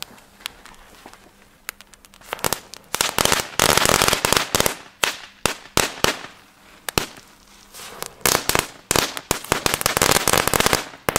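Weco Blitzknatterbälle, small category 1 crackling balls, going off: after a quiet couple of seconds, a fast, irregular run of sharp cracks that thins out in the middle and thickens again near the end.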